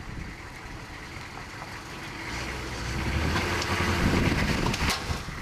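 Hummer H1 engine running, its low rumble growing louder about two seconds in, with a single sharp crack near the end.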